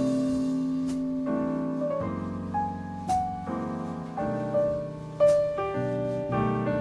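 Background music: a piano melody with sustained chords.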